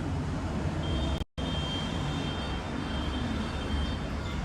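Steady low rumble of vehicle noise, with a brief total cut-out about a second in and a faint thin high whine over the middle part.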